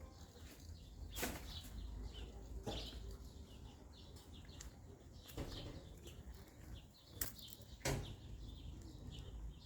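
Outdoor ambience: small birds chirping faintly over a low steady rumble, with a few sharp knocks or scuffs spaced a second or two apart.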